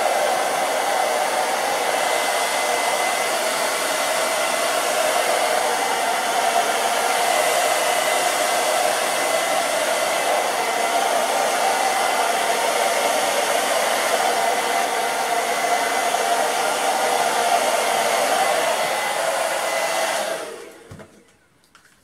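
Hand-held hair dryer running steadily: a rushing blow of air with a faint high whine, used to push wet acrylic paint across the canvases. It is switched off near the end and winds down quickly.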